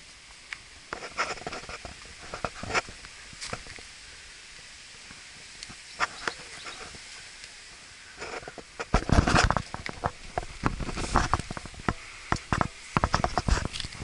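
Footsteps scuffing on a concrete path scattered with dry leaves, with rustles and knocks, sparse at first and then busier and louder from about eight seconds in.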